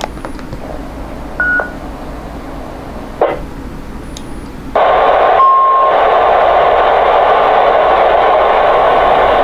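TYT mobile FM transceiver's speaker: a short beep and a click, then about five seconds in loud, steady receiver static hiss cuts in, with a brief beep just after it starts. This is open-squelch noise with no station answering the call.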